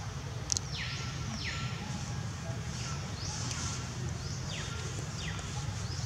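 Outdoor ambience: a steady low rumble with high, buzzy sweeps that fall in pitch, repeating about once a second, and a brief click about half a second in.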